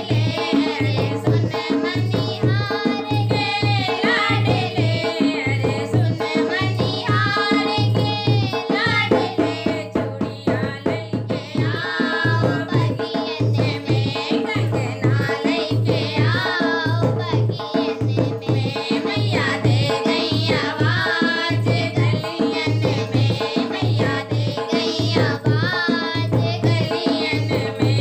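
Hindi devotional bhajan: a voice singing over a hand drum that keeps a steady beat.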